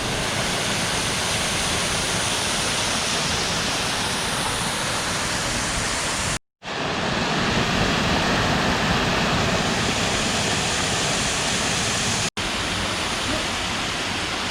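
Waterfall rushing: a steady, even noise of falling water, broken twice by a moment of silence.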